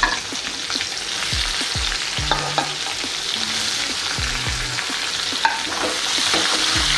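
Chopped onion sizzling in hot oil with whole spices in a pan as it is sautéed, a steady hiss broken by scattered scrapes and knocks of the stirring spoon against the pan.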